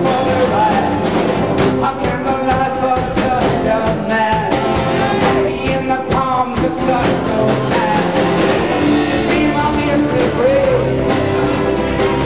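Live rock band playing at full volume: drum kit and guitar, with a singing voice over them, recorded from within the crowd.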